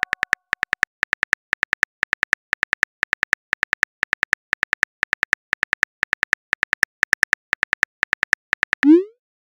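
Keyboard typing clicks from a texting-story app, a rapid run of short, sharp ticks, several a second, as a message is typed letter by letter. Near the end comes a short swoosh rising in pitch as the message is sent.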